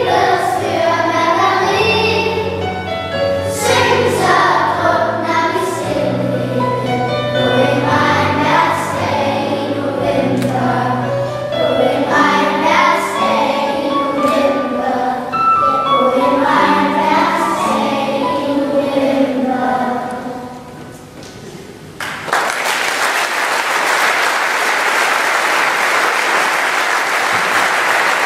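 Children's choir singing with instrumental accompaniment; the singing dies away about 20 seconds in. After a short hush, audience applause starts suddenly and carries on to the end.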